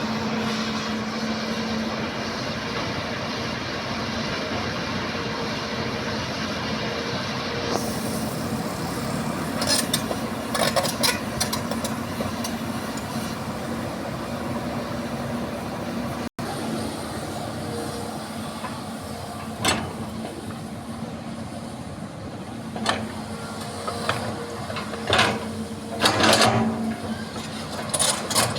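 Hitachi excavator's diesel engine running steadily, with occasional sharp knocks that come more often near the end.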